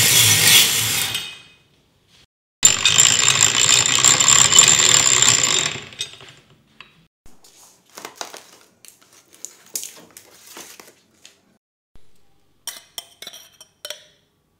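Vintage ice shaver rasping through ice: a scraping rush that stops about a second in, then runs again for about three seconds with a thin high whine. Scattered light clinks and taps follow.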